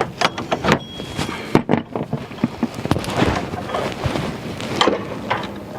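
Irregular metallic clicks and clinks of a socket wrench and tools on the power steering pump pulley bolt as it is backed out.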